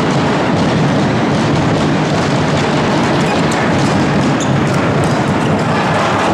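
Loud, steady crowd noise from spectators filling an indoor handball hall, with faint scattered knocks through it.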